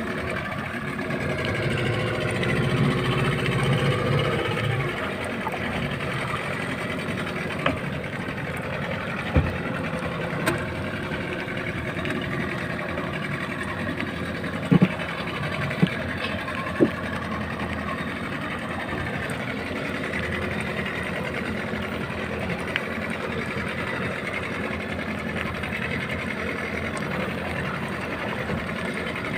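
Boat engine running steadily under way as the boat chases a hooked tuna, a little louder for the first few seconds. A few sharp knocks sound in the middle.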